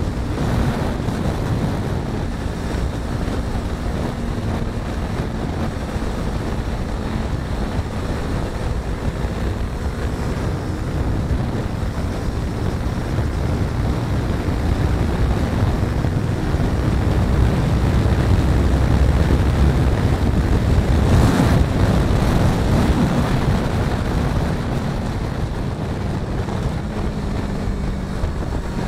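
Wind rushing over the microphone with a first-generation Yamaha R3's parallel-twin engine running beneath it at road speed. It grows louder for several seconds past the middle, then settles again.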